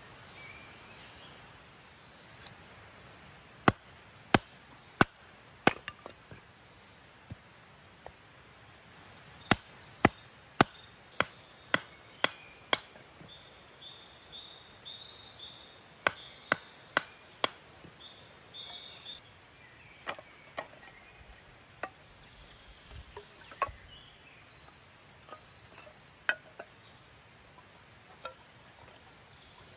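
Firewood being chopped into kindling: sharp chopping strikes in three runs of four to seven, about two a second, then fainter, scattered knocks.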